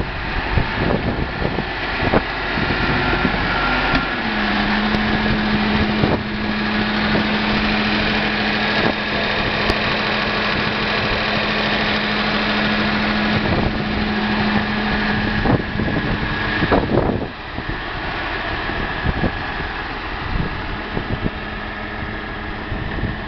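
A 1969 Massey Ferguson 1130's six-cylinder diesel engine running steadily at idle, with a steady low hum through the middle for about ten seconds.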